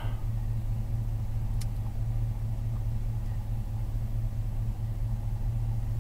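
Cadillac Escalade's V8 engine idling, a steady low rumble with no change in pitch.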